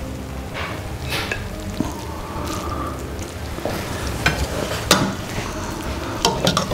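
Metal and wooden spoons scooping cooked rice pilaf out of a stainless-steel pot onto a ceramic plate, with soft scraping and a few sharp clinks of the utensils against the pot and plate, the loudest about five seconds in.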